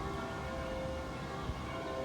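Church bells ringing, many tones overlapping and hanging on as they fade. Wind buffets the microphone underneath.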